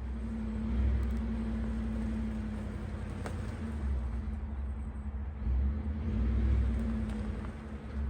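Truck engine running as it drives, a steady low rumble with a hum, swelling and easing a little.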